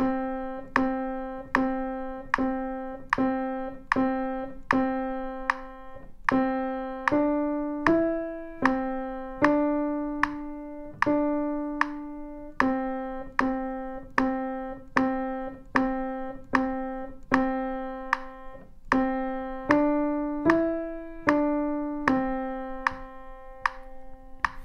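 Steinway piano played one note at a time with the right hand: a slow, steady single-line beginner melody around middle C, stepping among a few neighbouring notes at a little over one note a second.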